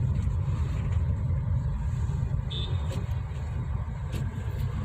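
Steady low rumble of a moving vehicle: engine and road noise while driving.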